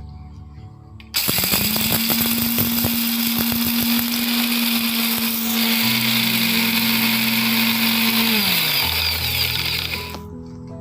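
Electric blender grinding whole dry spices (fennel seed, cumin seed) without water. It starts about a second in with hard seeds rattling and clicking against the jar, then runs as a steady high motor whine with grinding noise. The motor pitch drops as it winds down near the end.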